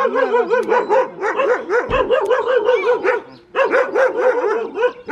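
A dog barking excitedly in a rapid series of high, yelping barks, about four to five a second, with a short pause about three and a half seconds in.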